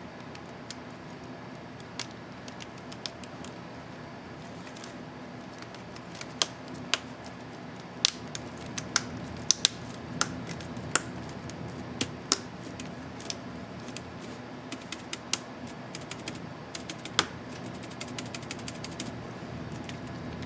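Acer Aspire M5-581T laptop keyboard keys being pressed and clicking, at first scattered single presses, then more often, with a quick run of presses near the end.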